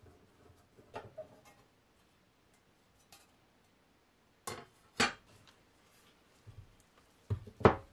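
Scattered sharp metallic clicks and clinks from opening the metal cover of a Honda OBD2B engine ECU, with the loudest two about halfway through and two more near the end.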